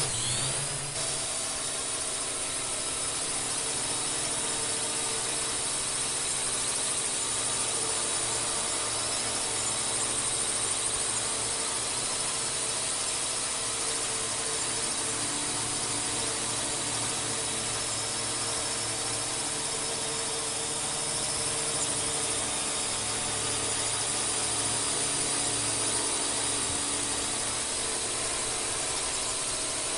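Drone's electric motors and propellers running steadily in flight: a sustained whirring whine made of several held tones, with a high whine on top and a lower hum beneath.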